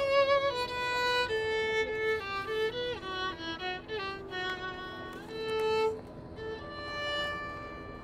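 Violin playing a slow melody, one note after another with vibrato, ending on a long held note that fades away.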